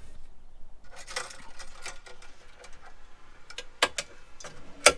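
Light clicks and knocks of a tank bracket's latch being worked as a 10 lb Power Tank is seated in its cradle, ending in two sharp clicks about a second apart, the second the loudest.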